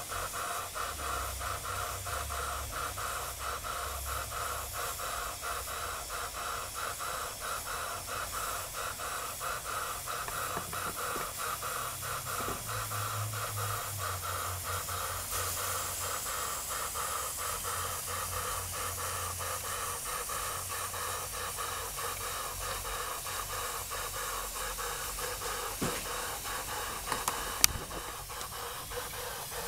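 Jensen live steam engine with a #20 cylinder running steadily, its exhaust giving a fast, even chuff over the hiss of steam. A single sharp click comes near the end.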